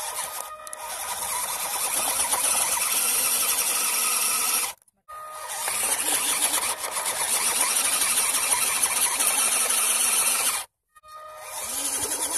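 Electric motor and gearbox of an Eachine EAT01 six-wheel-drive RC truck whining as it crawls over rocks. The whine cuts off twice, near the middle and near the end, as the throttle is let off, and climbs in pitch each time it comes back on.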